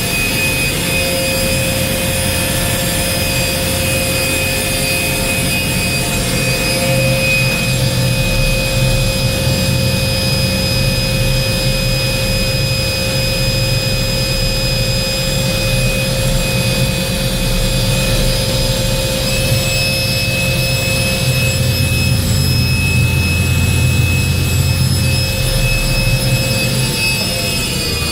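Workshop air compressor's motor coming up to speed and running steadily with a high whine over a low hum, then winding down near the end. The owner suspects a sticking intake check valve, since the compressor keeps cycling on and off.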